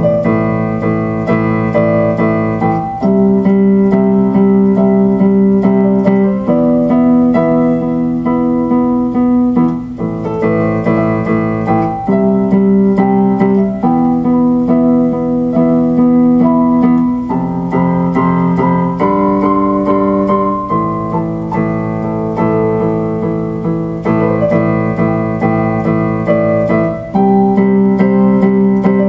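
Piano music: slow, held chords that change every two to three seconds.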